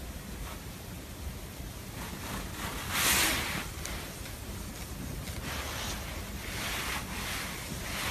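A hand rubbing a cat's belly fur close to the microphone: soft swishing strokes over a steady hiss, the loudest about three seconds in, with weaker ones later.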